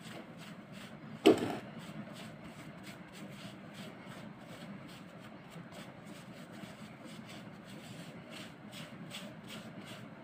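Cloth rubbing against skin in soft repeated strokes as dried face pack is wiped off the back of a hand. There is one short, loud knock about a second in.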